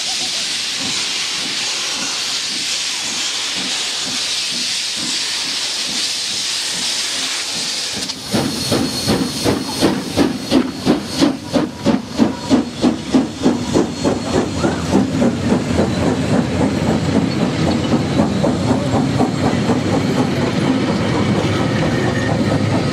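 Steam locomotive 1271, a Ja-class 4-8-2, leaving a station: a steady hiss of steam from its open cylinder drain cocks, then, about eight seconds in, loud regular exhaust chuffs at about three a second that quicken as it passes close by. The chuffs give way to the steady rolling and clickety-clack of the carriages passing.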